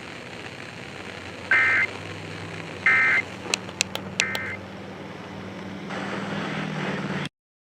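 Emergency Alert System end-of-message code: three short bursts of shrill digital data tones about a second and a half apart, signalling the end of the test alert, over a steady low hum and hiss. A few sharp clicks come between the second and third bursts, and the hiss swells before the audio cuts off abruptly.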